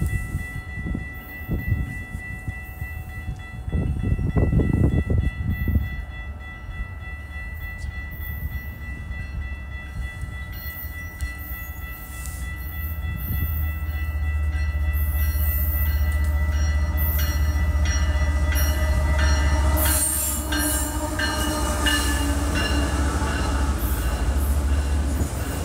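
Freight train approaching and passing: a diesel locomotive's low rumble builds from about halfway through, its horn sounds as it nears, and then autorack cars rattle past with a rapid run of clicks and knocks from the wheels.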